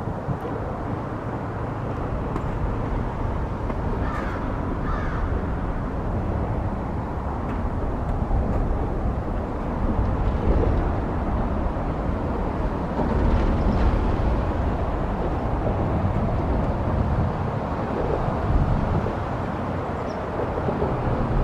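Steady low rumble of highway traffic on an overhead bridge, swelling a few times as vehicles pass. A couple of short bird calls come about four seconds in.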